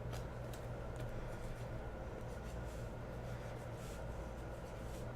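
Felt-tip marker scratching on cardboard boxes as numbers are written on them, with faint scattered scratches and light ticks over a steady low hum.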